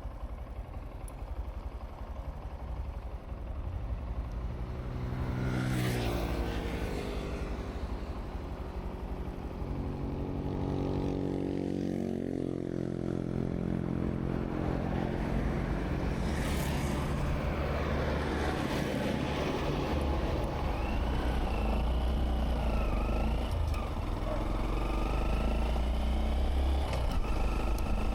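Honda Monkey 125's single-cylinder four-stroke engine running under way, its pitch rising and falling as it accelerates and eases off, with wind rush on the microphone.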